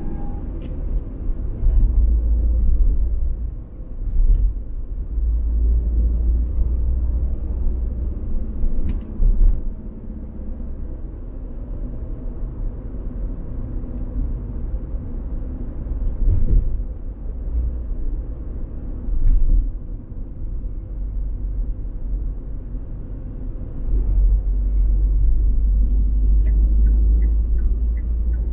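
A car on the move: steady road and engine rumble, heaviest in the deep lows and swelling at times, with a light ticking about two a second near the end.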